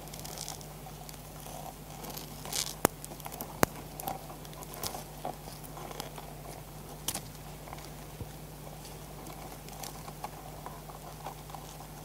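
Land hermit crabs moving their claws and shells close up: scattered creaks, scrapes and small clicks of shell against shell, with two sharp clicks close together around three seconds in standing out as the loudest.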